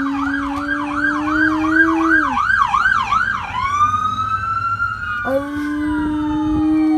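A police siren wavers quickly, about three times a second, then changes to a slow rising wail about three and a half seconds in. A dog howls along with it in two long, held howls, one at the start and one from about five seconds in.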